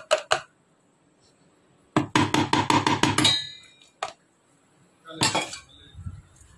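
Stainless-steel mixer-grinder jar knocked against a plastic container to shake out ground spice powder: a few taps at the start, then a quick run of about eight knocks about two seconds in, ending in a brief metallic ring. A single tap and a short scraping noise follow.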